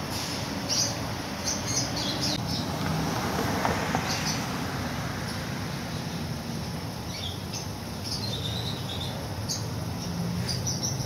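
Small birds chirping in short, scattered high calls over a low background murmur.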